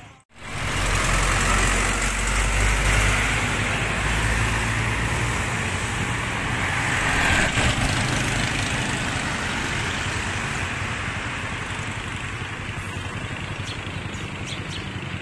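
A motor vehicle engine running close by amid street noise, loudest in the first few seconds and slowly fading.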